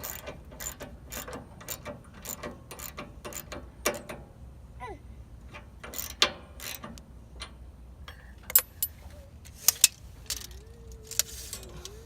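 Ratchet wrench clicking, about three clicks a second for the first four seconds, then irregular, louder single clicks, as the set bolt that pushes a bandsaw mill's blade guide roller down onto the blade is turned.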